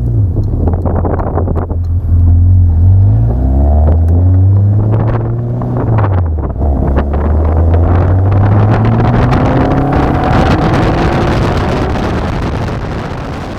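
Caterham Super Seven's engine pulling under load, its pitch climbing, dropping once about six seconds in, then climbing steadily again, with wind noise on the microphone.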